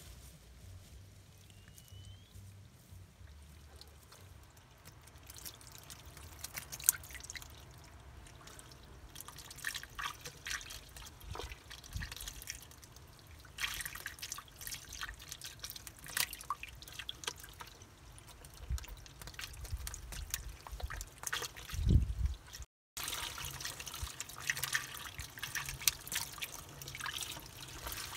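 Trapped fish flopping in shallow muddy water at the bottom of a dug mud-hole trap, making irregular wet splashes and drips that grow busier after the first few seconds.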